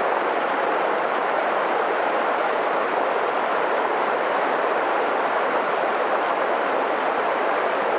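Mountain stream rushing steadily over rocks into a deep pool, an even unbroken water noise.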